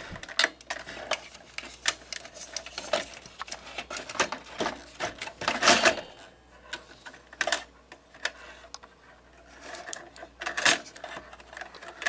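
Scattered clicks, taps and light knocks of metal and plastic parts handled inside an open desktop computer case, at the CPU socket's lever and load plate and the plastic heatsink shroud. The loudest knocks come about six and eleven seconds in.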